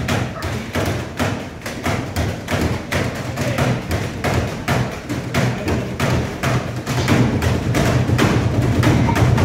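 Rhythmic stage percussion played on trash cans and newspapers: evenly spaced hits about four a second, getting louder near the end.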